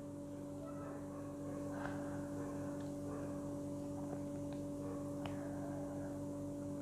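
A steady low hum with a few faint ticks of a ladle touching the steel pressure cooker pot as thick mushroom gravy is stirred.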